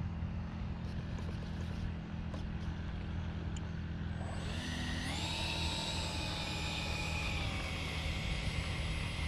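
Freewing F-22 Raptor's 64mm electric ducted fan spooling up about halfway through: a quickly rising whine that settles into a steady high-pitched whine as the jet starts to roll. A steady low hum runs underneath.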